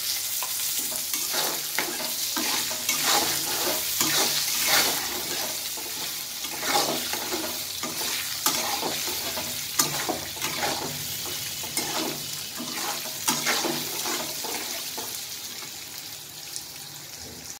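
Eggplant pieces sizzling in hot oil in a metal kadai, turned with a flat metal spatula that scrapes and clicks against the pan again and again at an irregular pace.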